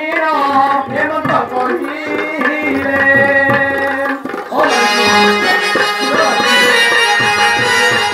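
Live theatre accompaniment of harmonium and tabla: a wavering melody for the first four and a half seconds, then a fuller held harmonium chord over steady tabla strokes.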